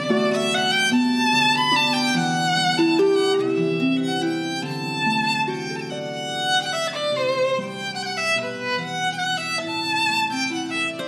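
Violin and Celtic harp playing a duet: the bowed violin carries a melody with vibrato over plucked harp notes and chords in the lower range.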